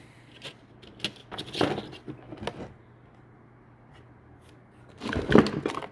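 Loose metal engine parts clinking and knocking as they are picked up and moved about, a string of light taps early on, then a louder scrape about five seconds in.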